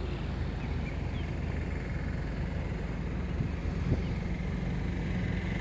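Motor vehicle engine running steadily with a low hum, with a couple of faint knocks about three and a half and four seconds in.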